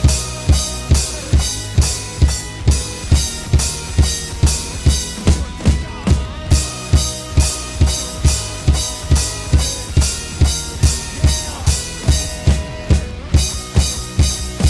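Instrumental section of a pop-punk rock song: a drum kit plays a steady, fast beat of bass drum and snare with cymbals over held guitar chords. The cymbals drop out briefly about six seconds in and again near the end.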